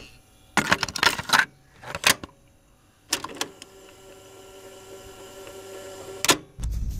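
Typing sound effect: three bursts of rapid key clatter, then a steady machine whirr that slowly swells and ends in one sharp click. Piano music comes in right at the end.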